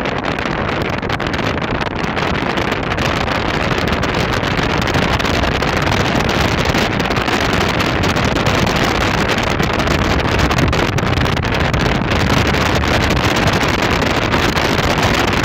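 Steady rush of wind on the microphone with road noise from a car driving fast, growing a little louder over the first few seconds.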